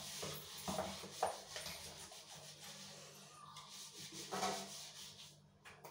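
Kitchen work noises: soft rubbing and scraping of utensils with a few light knocks, over a faint steady hum.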